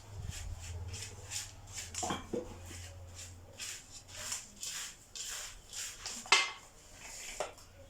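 A spoon stirring dry granola mix of oats, seeds and raisins in a bowl: a run of irregular scraping, rustling strokes, with one sharper knock about six seconds in.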